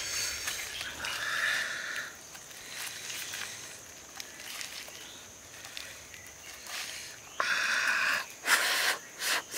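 Fingers picking and tearing at a grilled snakehead fish's charred skin and flesh, with faint rustling. About seven seconds in come several loud, breathy mouth noises of eating.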